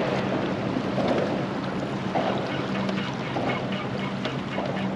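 Wind on the microphone and water lapping against a small boat's hull in soft swells about once a second, over a steady low hum.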